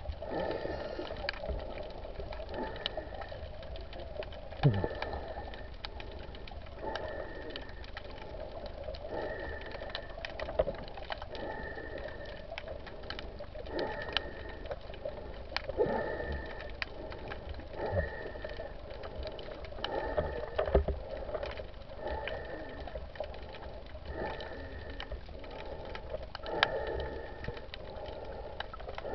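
Underwater sound picked up through an action camera's waterproof housing while swimming with fins: a constant crackle of sharp clicks and swishing water, with a short high tone repeating about every two seconds.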